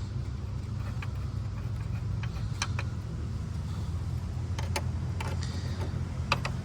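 Scattered light clicks and taps of a hand tool working the screws on a plastic coolant reservoir, several in quick pairs, over a steady low hum.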